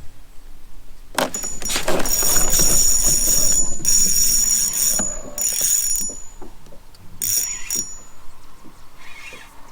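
Fishing reel being cranked in three spells with short stops between, a rushing sound with a high gear whine.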